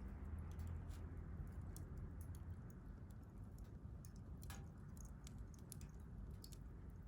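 Wood campfire crackling: irregular small pops and snaps over the low, steady rush of the flames, with one longer pop about four and a half seconds in.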